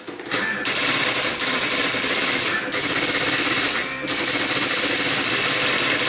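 Juki 6100 daisy wheel printer printing a test page: a fast, continuous clatter of the hammer striking the print wheel, starting a fraction of a second in, with two brief breaks.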